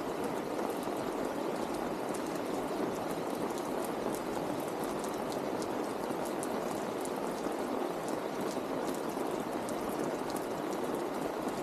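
Steady rain: a dense, even hiss with many sharp ticks of drops striking close by.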